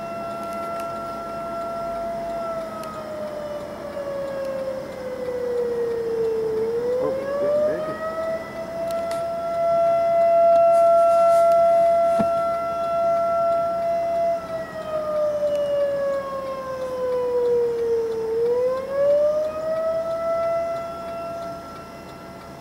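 Outdoor tornado warning siren sounding a steady tone that twice sags lower over several seconds and then climbs quickly back up, its loudness swelling and fading.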